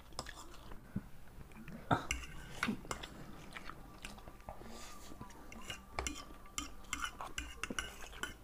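Two people eating instant noodles: chewing and mouth sounds, with scattered small clicks and scrapes of forks against ceramic plates.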